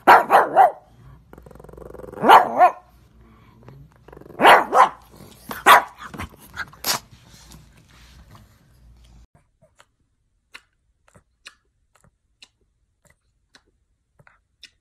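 A pug barking: a run of short, loud barks over the first seven seconds, then only a few faint clicks.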